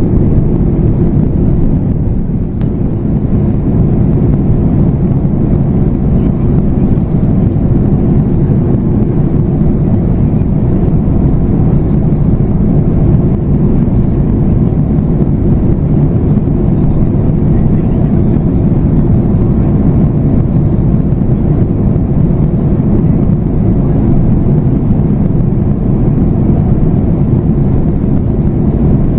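Steady cabin noise of a Boeing 737 MAX 8-200 in flight: a deep, even rumble of airflow and its CFM LEAP-1B engines, heard from a window seat.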